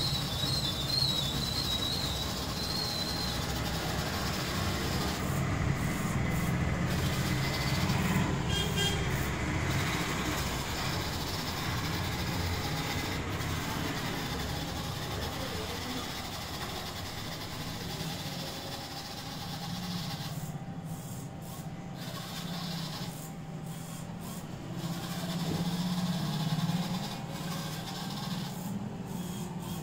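Small DC gear motors of a two-wheeled Arduino robot car whirring as it drives itself across a wooden floor. The higher part of the sound cuts out for a second or two about five times, then comes back.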